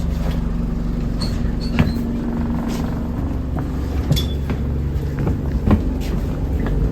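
Alexander Dennis Enviro200 single-deck bus running, its engine a steady low drone, with frequent rattles and knocks and a few short high squeaks: the weird noises this bus makes.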